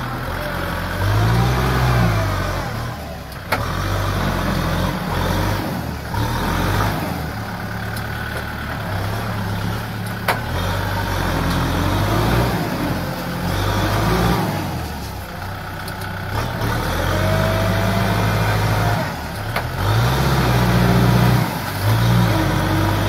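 Kubota tractor's diesel engine labouring through deep mud and water, its pitch rising and falling repeatedly as it is revved and loaded. A couple of sharp knocks come through along the way.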